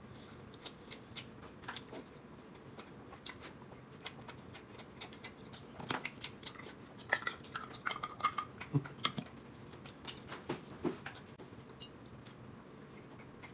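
Quiet eating sounds: scattered light clicks of chopsticks and a spoon against a plate and a metal sauce tin, with chewing. The clicks come faster in the middle.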